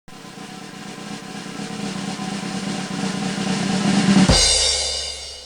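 Orchestral cartoon music opening with a drum roll that builds steadily louder over a held low note, peaking in a loud hit about four seconds in and then fading.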